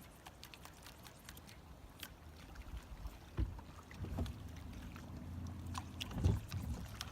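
Fishing boat on choppy, windy water: a few low thumps of waves slapping the hull in the second half, with a low steady hum for a few seconds.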